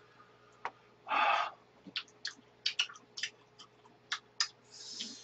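Close-up eating sounds: a breathy burst about a second in, then a quick run of sharp clicks of chewing and mouth noises, and a high hiss near the end.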